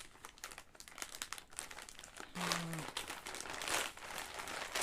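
Taped packaging being torn open by hand, with irregular crinkling and rustling that gets louder about halfway through. A short hum from the person's voice briefly comes in near the middle.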